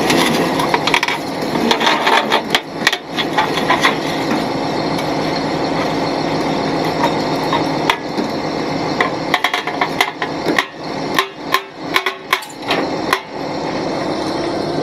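Irregular metal clanks and knocks from burned RV wreckage being loaded onto a tilted rollback tow-truck deck, over the steady running of the truck. The knocks come thick and fast for several seconds toward the end.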